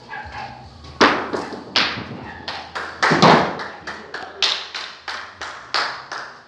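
Bocha balls striking: a sharp knock about a second in, then a string of irregular knocks and thuds, a couple to a few a second.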